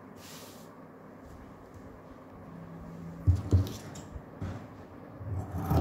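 Hands rustling and smoothing a piece of cloth on a table. About three seconds in there is a thump, followed by a few short scissor snips into the fabric.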